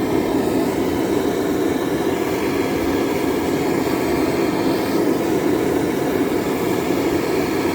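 Hand-held propane torch flame roaring steadily as it heats the oil pan of a cold welder engine to thin the oil before another start attempt.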